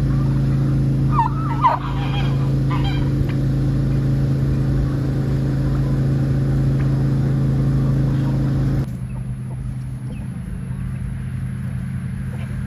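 A few short, wavering calls from domestic turkeys about a second in, over a loud, steady motor hum. The hum drops suddenly in level about nine seconds in.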